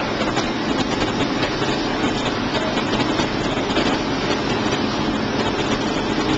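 Steady, even noise of forge-shop machinery running, with no hammer blow, and a few faint metallic knocks.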